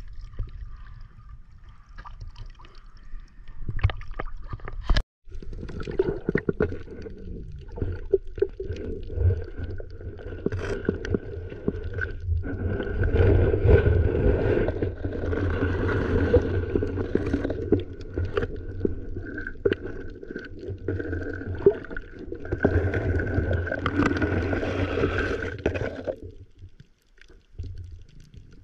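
Muffled underwater sound picked up by a camera in a waterproof housing: a low rumbling wash of moving water with scattered knocks, and a faint steady whine above it. It starts after a short break about five seconds in and fades out near the end.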